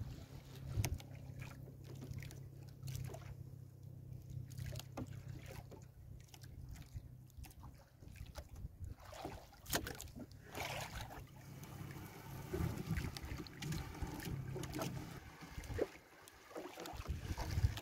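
A gill net being hauled by hand into a wooden outrigger canoe: scattered knocks and clicks of net and gear against the hull, with water washing and dripping, over a steady low hum that stops about three-quarters of the way through.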